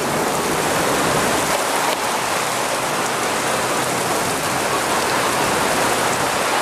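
Heavy thunderstorm rain pouring steadily, an even hiss.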